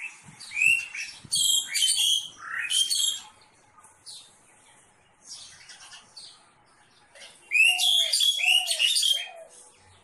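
Red-vented bulbul calling: two bouts of quick, sharp chirping notes, one in the first three seconds and another starting about seven and a half seconds in, with fainter calls between.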